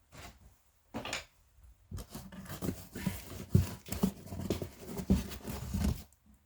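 Rustling and light knocking from handling packaging and metal parts of a scooter cylinder kit, busiest from about two seconds in.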